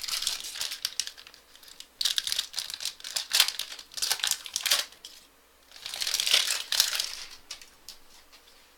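Crinkling of a trading-card pack wrapper as it is torn open and handled. It comes in three bouts of a second or more each, the last about six seconds in.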